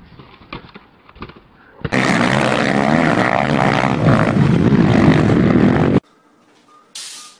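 A loud engine running for about four seconds. It starts abruptly about two seconds in and cuts off suddenly; a few faint knocks come before it.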